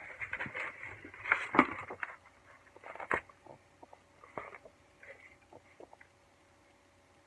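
Packaging being handled and unwrapped: crinkling and rustling for about two seconds with a sharp clack near the middle of that, another clack about three seconds in, then only scattered light taps that fade to quiet.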